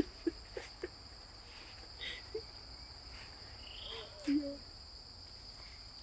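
Insects droning steadily at one high pitch, with a fainter higher tone above it. A few faint clicks come in the first second, and a brief low sound stands out a little after four seconds in.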